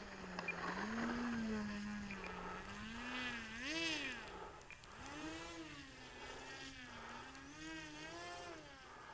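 Electric motor and propeller of an E-Flite Timber RC plane buzzing, the pitch rising and falling as the throttle changes, with a quick climb to a high whine about four seconds in.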